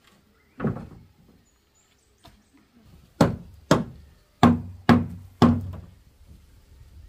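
Wooden pole knocked up against the underside of a corrugated roof and its wooden rafter: one knock about half a second in, then five more in quick succession a few seconds later, each ringing briefly.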